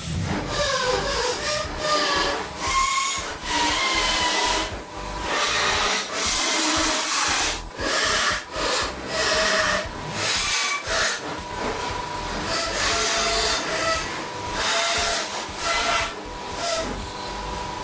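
Small handheld belt file sander grinding surface rust off the thin sheet steel of a VW Beetle decklid. It runs in a series of short bursts, each one to two seconds long, with a hissing whine whose pitch rises and falls with each burst.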